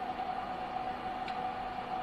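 Steady machine hum with one held tone over a faint hiss, and a single faint click a little over a second in.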